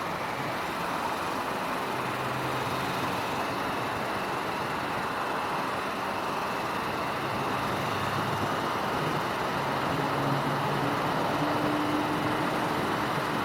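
Motorbike running on the road, with steady wind and road noise over a low engine note that rises slightly in the last few seconds.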